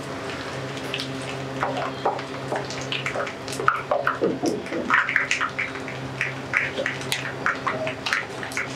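Whole spices and dried red chillies sizzling in hot mustard oil in a nonstick wok while a wooden spatula stirs them, with irregular crackles and pops. A steady low hum runs underneath.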